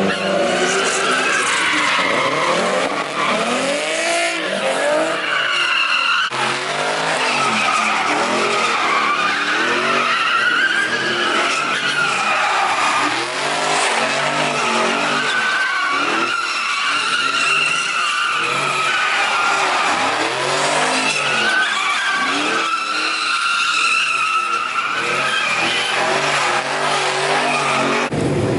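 A car spinning its tires: the engine revs up and down over and over while the tires squeal without a break, with a couple of abrupt jumps in the sound.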